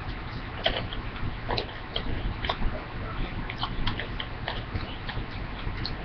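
Chewing small chocolate candy balls close to the microphone: irregular crunchy clicks, roughly two a second, over a low steady hum.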